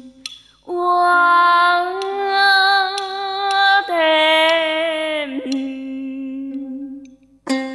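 A woman singing in ca trù style: a few long, held notes with a wavering vibrato, starting about a second in and fading out near the end. A few sharp clicks sound sparsely behind the voice.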